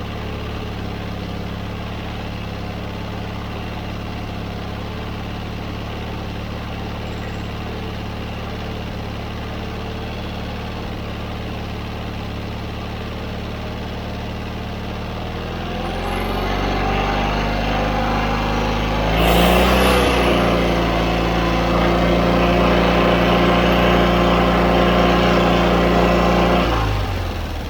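John Deere 317 riding lawn mower engine running at a steady idle. It is throttled up from about halfway, reaches a higher steady speed a few seconds later, then drops back down near the end.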